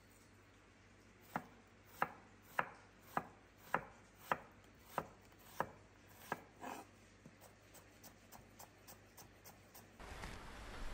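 Chef's knife chopping a peeled onion on a wooden cutting board: about ten sharp knocks, roughly two a second. After that comes a run of quicker, lighter taps.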